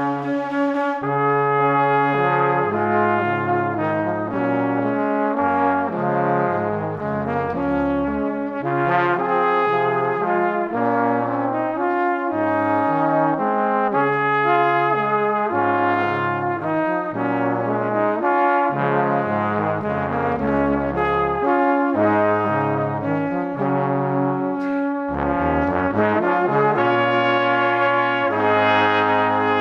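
Instrumental background music with brass-like melody and bass notes, playing steadily.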